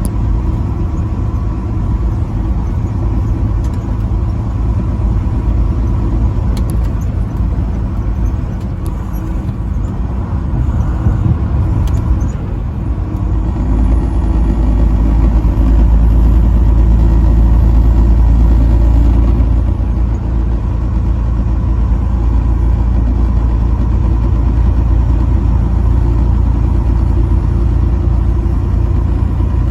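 Motor vehicle driving on a road: a steady low rumble of engine and tyres, swelling louder for several seconds around the middle.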